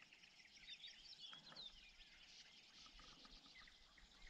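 Faint birdsong: several small birds chirping with quick high notes and short falling whistles, over a light background hiss.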